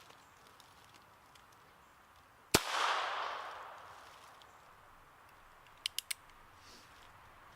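A single shot from a Chiappa .22LR single-action revolver about two and a half seconds in, its report dying away over a second or so. About six seconds in come three quick metallic clicks, typical of the hammer being cocked for the next shot.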